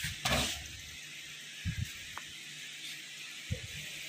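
Laser-cut board pieces being handled on the laser cutter's slatted bed: a short scrape about half a second in, then a few soft knocks, over a steady hiss.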